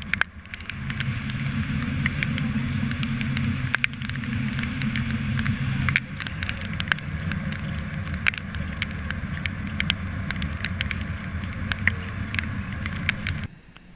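Heavy wind rushing and buffeting over an action camera's microphone on the deck of a fast-moving patrol boat, a deep rumble with hiss on top and many sharp crackling clicks. It cuts off abruptly near the end.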